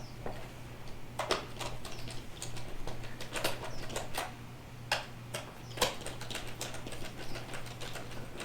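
Irregular small metal clicks and taps as Torx screws are started into a steering wheel's metal frame with a hand tool, over a steady low hum.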